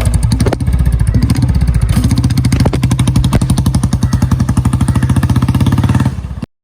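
Motorcycle engine running with a fast, even exhaust beat. The sound cuts off abruptly near the end.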